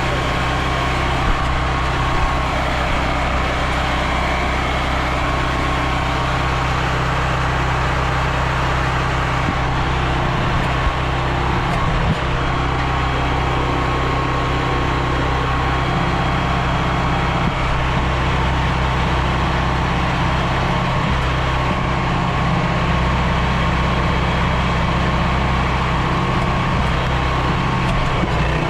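Gas-engine generator on a pressure-washing rig running steadily at a constant speed, with a low, even hum.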